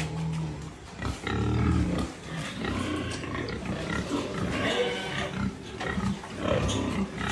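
Pigs grunting: a run of short, low grunts with pauses between them, and a rougher, higher-pitched stretch about five seconds in.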